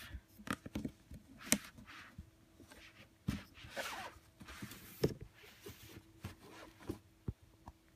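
Cardboard shoe box being opened and handled: soft rustling and scraping swishes with scattered light knocks and taps.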